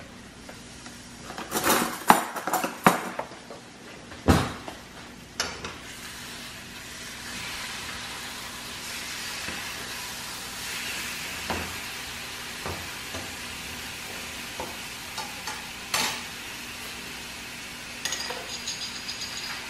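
Sharp knocks and clatters in the first few seconds as seasoning containers are handled over a stainless steel saucepan. Then a fork mashes and stirs potatoes in the pot, with steady scraping and a few light metallic clinks against the pan near the end.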